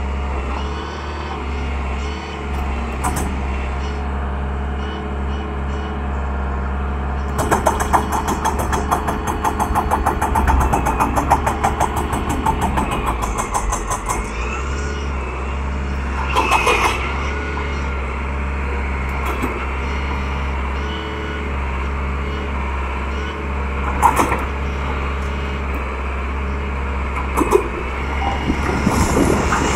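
Hydraulic excavator (Tata Hitachi Zaxis 120) working at a concrete building: its diesel engine runs steadily under load with a rising and falling hydraulic whine. A rapid rattling clatter runs for several seconds near the start, and the bucket strikes the pillars with a few sharp knocks later on.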